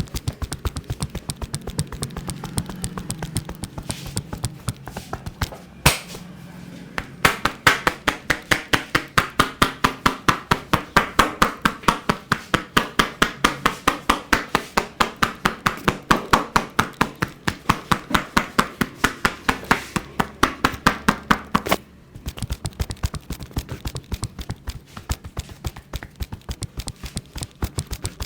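Barber's hands striking a client rapidly and rhythmically in percussive massage strokes, about five sharp slaps a second. The strokes break off briefly about six seconds in and again near the end.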